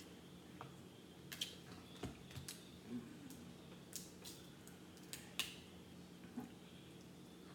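Crab leg shells being cracked and pulled apart by hand: a series of short, sharp, irregular cracks and clicks.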